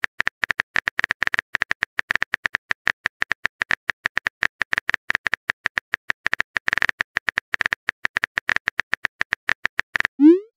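Keyboard tap clicks of a texting-app typing effect, a rapid run of short, even clicks several times a second as a message is typed. Near the end a short rising swoosh sounds as the message is sent.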